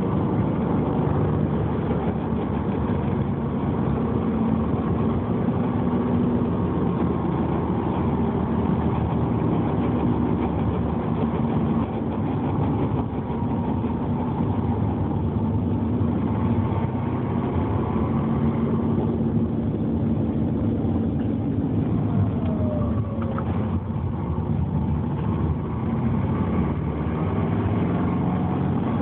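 Subaru Legacy's engine and drivetrain running steadily while driving, with a few slow shifts in pitch. The car has a rev-dependent grinding noise that comes only when decelerating in gear with the clutch pedal released.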